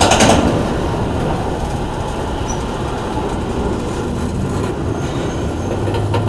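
Intermodal freight train cars rolling past on the rails: a steady rumble of steel wheels on track, with a brief clatter at the start.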